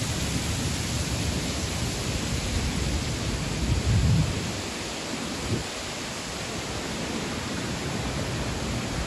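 Steady rushing noise of a waterfall falling into a rock pool. A low rumble swells briefly about four seconds in, with a shorter one at about five and a half seconds.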